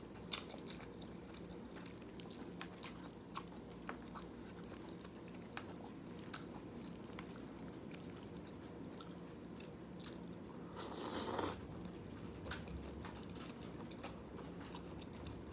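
Close-miked eating of jjajangmyeon noodles: soft chewing with scattered small mouth clicks, and one short, louder noisy burst about eleven seconds in.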